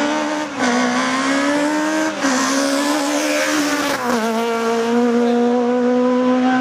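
Škoda Octavia kit car's race engine at high revs under full throttle. Its pitch drops sharply three times, about half a second, two seconds and four seconds in, as at quick upshifts, then holds steady.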